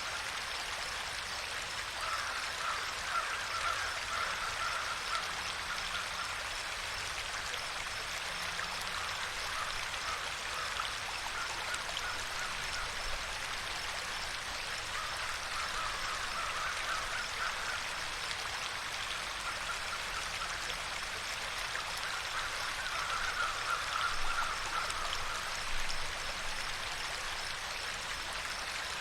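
A stream of water running steadily. Several spells of a rapid, pulsing animal call come and go over it.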